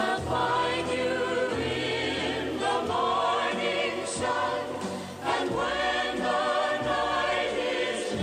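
A choir singing with musical accompaniment, played back from reel-to-reel tape on a Teac A-4000S deck, its audio fed directly from the deck rather than picked up in the room.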